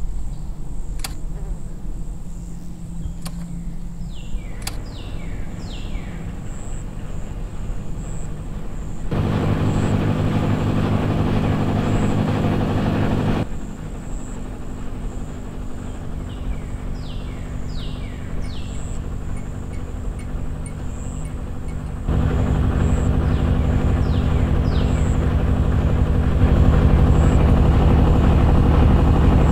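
An engine running steadily, louder and fuller from about nine to thirteen seconds in and again from about twenty-two seconds on. Birds chirp in short falling calls a few times over it.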